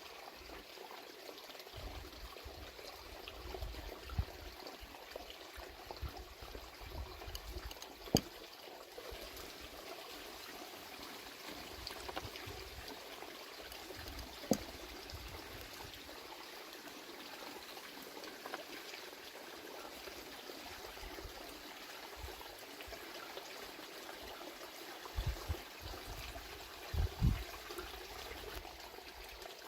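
Steady trickling of running water, like a small stream, with a couple of single sharp clicks and a few low thumps near the end.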